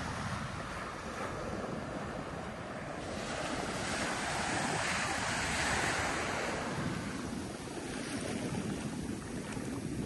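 Surf washing in with wind noise on the microphone. The rush swells about three seconds in and eases off by about seven seconds.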